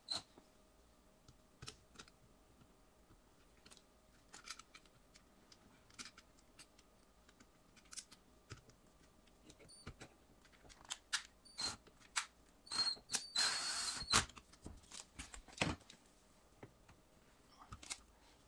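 Faint clicks and taps of a sheet-metal junction box cover being handled and fitted on a dishwasher. About two-thirds of the way in, a cordless drill whirs in a few short bursts and then runs for about a second, driving the cover's screw.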